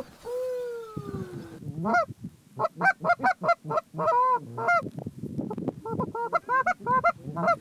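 Canada geese honking: a long falling call near the start, then a quick run of short honks and clucks, about four a second.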